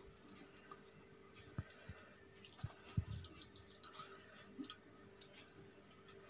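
Faint, scattered light clicks and a few soft knocks from hands working over a pizza tray while sprinkling dry spice, over a low steady hum.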